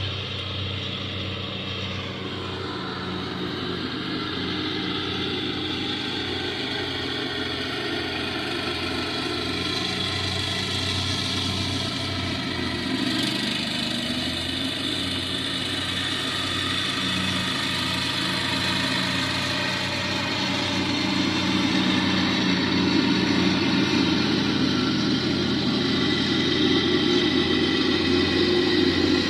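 Lawn mower engine running steadily, growing somewhat louder about two-thirds of the way through.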